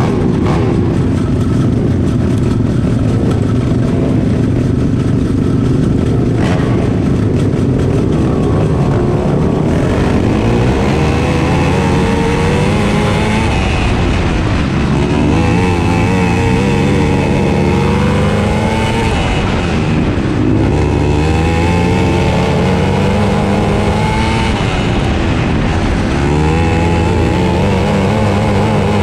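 A 450cc Outlaw kart's single-cylinder four-stroke engine heard on board under racing load. It runs steadily for the first ten seconds or so, then climbs and falls in pitch every three to four seconds as the throttle is opened and closed around the track.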